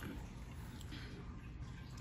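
Faint sipping and swallowing from an open can of ginger ale, over a low steady hum.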